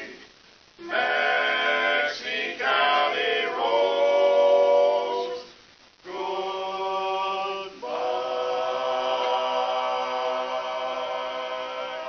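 Barbershop quartet singing a cappella in close harmony, with two brief breaks, near the start and about six seconds in, then ending the song on a long held chord.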